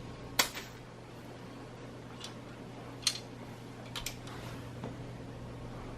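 Light, sharp clicks of mini marbles on a plastic marble run set, about six scattered over a few seconds, with two close together about four seconds in, over a faint steady hum.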